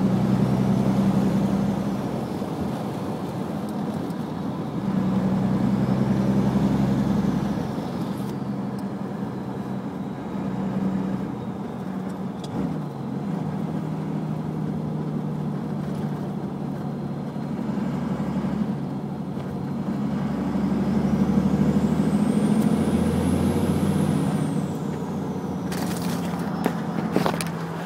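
Un-silenced HX35 turbocharger on a 1st-gen Cummins 5.9 diesel whistling as it spools up under acceleration, over the engine's running, heard through an open window. The whistle rises and falls three times: at the start, about five seconds in, and a longer, higher one from about twenty seconds in. A few sharp clicks near the end.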